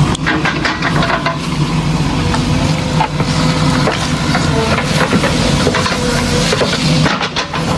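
Heavy construction machine's diesel engine running steadily, with repeated crunching and clattering of stone and gravel over it.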